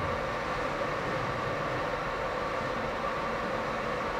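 LabelMark fiber laser marking machine running while it engraves a square into metal: a steady hum with two held tones, one mid and one higher.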